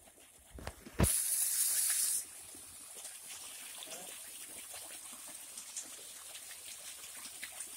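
Water gushing steadily from an irrigation pump's outlet pipe into a field channel. About a second in, a loud hissing burst lasts about a second before the steady rush settles in.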